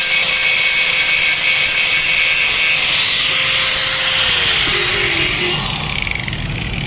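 Small hand-held power tool running steadily with a harsh hiss, working away the burnt section of a solar charge controller's circuit board. Its motor tone drops in pitch about four seconds in.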